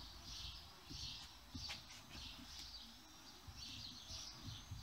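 Faint birds chirping over and over, about twice a second, with a few light clicks as the bicycle headset's top parts are worked loose by hand.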